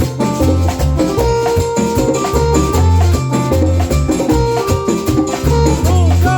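A band rehearsing a Latin dance tune: a strong bass line under steady, quick percussion and held melody notes.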